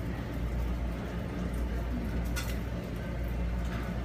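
Steady low mechanical hum under a noisy background, with a couple of brief clicks about two and a half seconds in and near the end.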